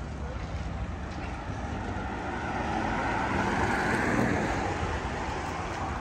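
A vehicle passing by: its sound builds, is loudest about four seconds in, then fades, over a steady low outdoor rumble.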